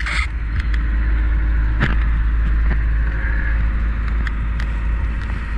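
Dive boat under way at sea: a loud, steady low rumble of its engine and wind, with a few short knocks.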